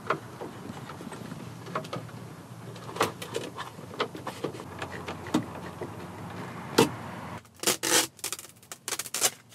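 Plastic dash trim of a 1993 Chevrolet Silverado being fitted by hand: scattered clicks and knocks as the radio is pushed in and the instrument-cluster bezel is pressed into place, with a quick run of sharp clicks near the end.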